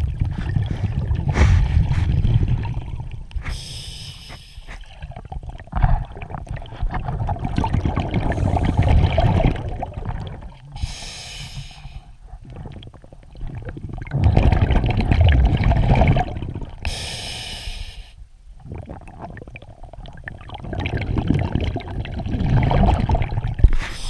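Scuba breathing through a regulator, heard underwater: a short hiss of inhalation three times, each followed by a long rumbling burst of exhaled bubbles, in a slow steady cycle.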